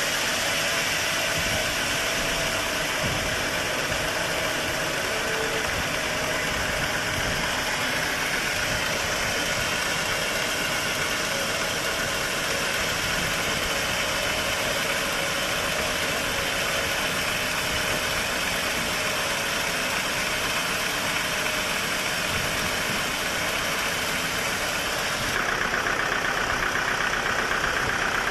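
Sawmill machinery running steadily with a dense mechanical noise. About three-quarters of the way through the sound shifts to a higher, brighter tone and grows slightly louder.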